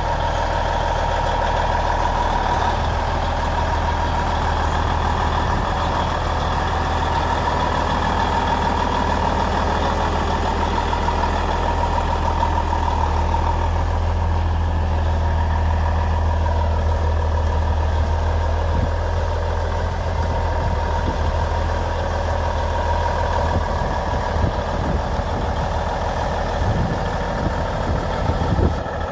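1999 Kenworth semi tractor's diesel engine running steadily at an even, low speed, a little less even over the last few seconds.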